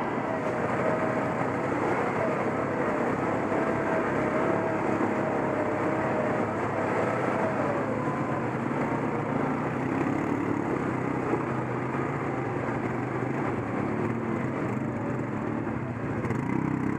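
ATV engine running under throttle while riding a trail. Its pitch wavers up and down, and rises again over the last few seconds.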